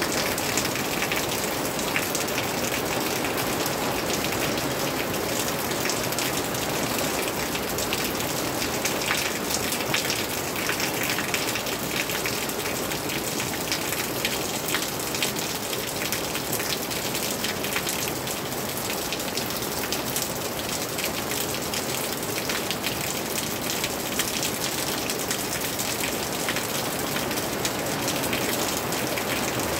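Steady rain: an even hiss with many close drop hits ticking through it.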